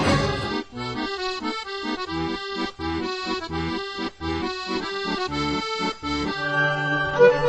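Background music: a new tune with a steady bass beat starts about half a second in, replacing the music before it.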